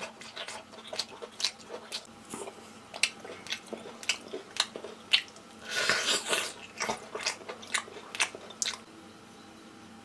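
Close-miked chewing of spicy grilled squid tentacles: a run of sharp, wet mouth clicks and smacks, two or three a second, with a louder, denser stretch of chewing about six seconds in, stopping about a second before the end.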